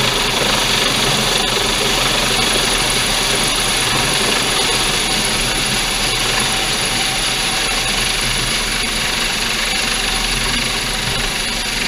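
Coast Guard MH-65 Dolphin helicopter hovering low overhead: a loud, steady rush of rotor noise and downwash with a constant high turbine whine on top.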